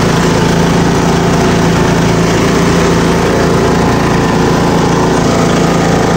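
Riding lawn mower engine running at a steady speed as the mower drives across the lawn.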